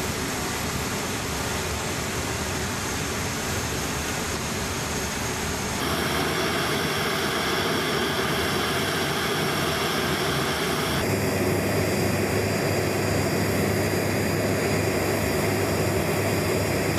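Steady jet aircraft noise, a constant rush with a faint whine, that changes character abruptly about six and again about eleven seconds in.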